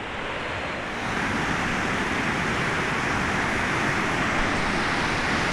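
Steady rushing of a fast mountain river, growing a little louder about a second in.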